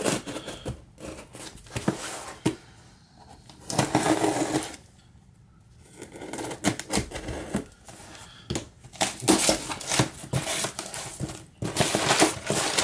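A cardboard shipping box being handled and cut open with a knife: packing tape being slit, and cardboard scraping and rustling in irregular bursts with small clicks.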